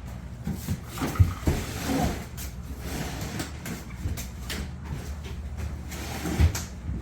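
Irregular knocks and thumps of a wooden kitchen corner cabinet being handled and shifted into place, with the loudest bumps about a second in and again near the end.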